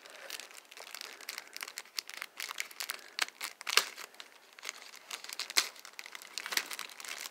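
Plastic packaging crinkling and crackling as it is handled and pulled open by hand, a dense run of irregular crackles with a few sharper snaps near the middle.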